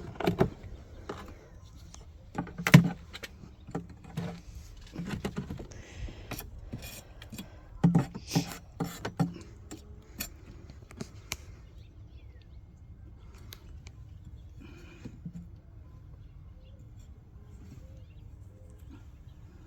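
Wooden beehive frames and hive equipment being handled: a run of sharp clicks and knocks, loudest about three and eight seconds in, dying down to a few faint ticks in the second half.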